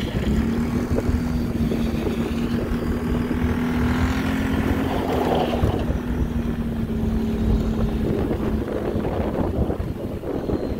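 ATV (quad) engine running steadily as it drives on snow, its note rising slightly about four seconds in and then easing back. Wind buffets the microphone.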